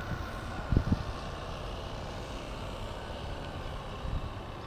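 Live-steam model speed boat's single-cylinder steam engine running out on the water as a steady drone, with a faint high tone in it that fades after the first second or so. Two short low thumps of wind on the microphone come just under a second in.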